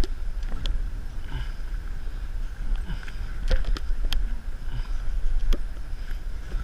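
Wind buffeting the microphone as a low, uneven rumble, with scattered light clicks and knocks.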